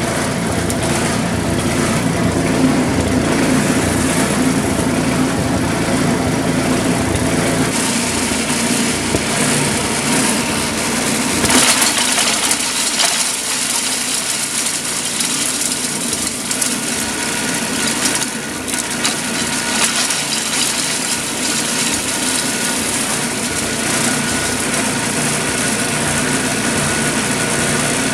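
A Lazy Boy wood chipper driven by a 5 hp Briggs & Stratton engine runs steadily while brush is fed in and chewed up, a continuous crunching, crackling grind over the engine. Louder bursts of crackling come about 11 and 18 seconds in.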